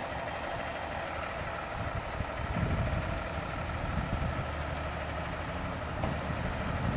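Diesel engine of a Pierce Enforcer fire engine running at a low, steady idle as the truck creeps forward, with the rumble swelling slightly about two and a half seconds in.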